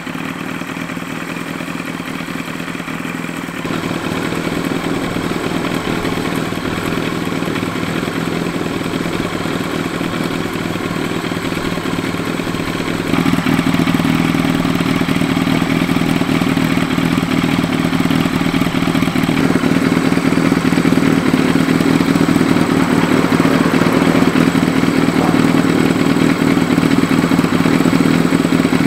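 Kawasaki Z1000R's air-cooled inline-four engine idling steadily through a KERKER 4-into-1 megaphone exhaust. The sound steps up louder about 4 seconds in and again about 13 seconds in.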